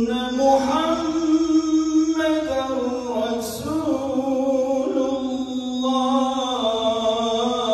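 A muezzin singing the adhan, the Islamic call to prayer, in one male voice: long held phrases that bend and turn in pitch in ornamented runs.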